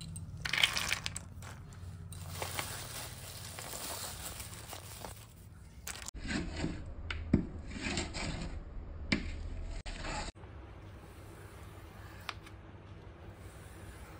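Handling sounds while making cashew sweets: a plastic bag of cashews crinkling and rustling as the nuts are scooped, then scraping with two sharp knocks as cashew paste is poured from a steel pan onto a tray, and quieter scraping near the end.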